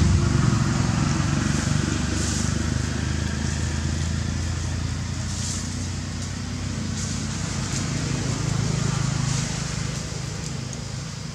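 Steady low engine rumble, as from a motor vehicle running nearby, slowly fading, with a few faint soft clicks over it.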